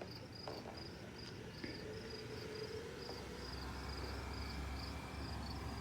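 Crickets chirping in a steady, even pulsing rhythm, with a low rumble coming in after about three seconds.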